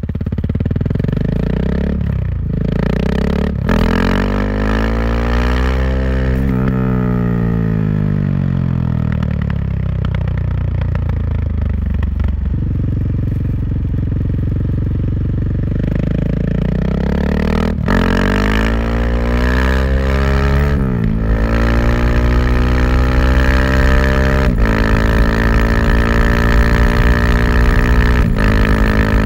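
KTM 690 SMC R's single-cylinder engine through an Arrow exhaust, pulling hard with the pitch climbing, then dropping back on a closed throttle before pulling again. Several quickshifter upshifts come as sharp cracks, each followed by a sudden drop in engine pitch.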